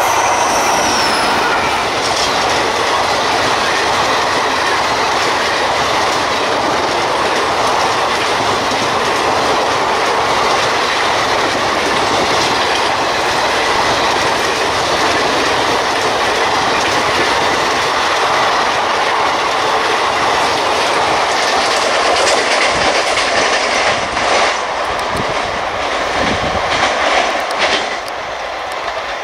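Superfast express train of LHB coaches behind a WAP-4 electric locomotive passing close at high speed: a loud, steady rush of wheels on rail with a rhythmic clickety-clack over the rail joints. About 28 seconds in it drops abruptly to a quieter, more distant rumble.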